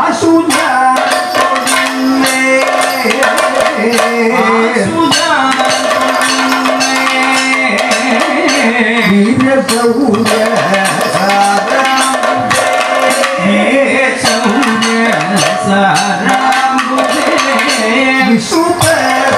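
Live Kathakali accompaniment music: rapid hand-drum strokes over a steady held note, with a voice or melody line sliding between pitches.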